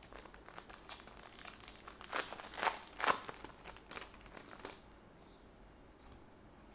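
Foil wrapper of a Weiss Schwarz trading-card booster pack crinkling and tearing as it is opened, a dense run of crackles that dies away after about four and a half seconds.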